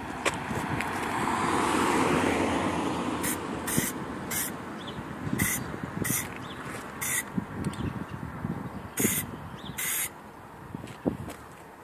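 Aerosol can of Plasti Dip rubber coating sprayed in about nine short hissing bursts, a fraction of a second each, onto a car's bumper trim. Before the spraying, a rushing noise swells and fades over the first three seconds.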